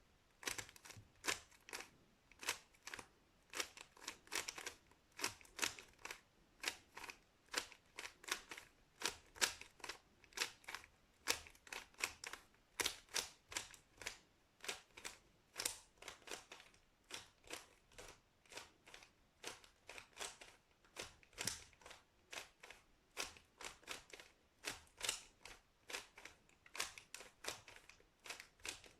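A plastic 3x3 Rubik's cube being turned over and over, its layers clicking and clacking in quick irregular rounds of a few clicks a second as the same algorithm is repeated.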